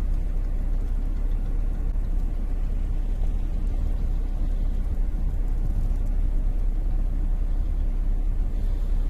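Blizzard wind buffeting the microphone: a steady, deep rumble with no distinct engine note.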